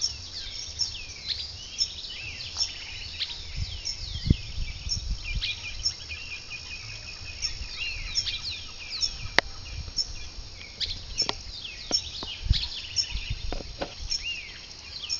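Many birds calling and chirping in the trees, with a short high note repeating about twice a second over a low rumble, and one sharp click about nine seconds in.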